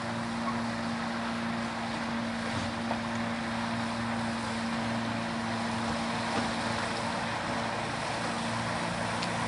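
Small motorboat's outboard engine running steadily at speed, over an even background hiss.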